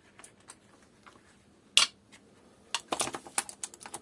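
Socket ratchet clicking as it works fasteners off an engine's inlet manifold, with small metal clinks: a single sharp click about two seconds in, then a quick irregular run of ratchet clicks near the end.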